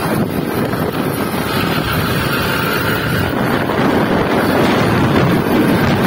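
Small motorcycle being ridden, its engine running steadily under heavy wind noise buffeting the microphone.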